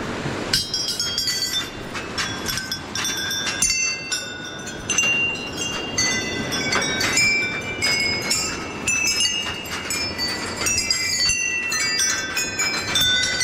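Rows of small hanging temple bells rung by hand one after another, each strike ringing on at its own pitch so the tones overlap in a continuous jangle.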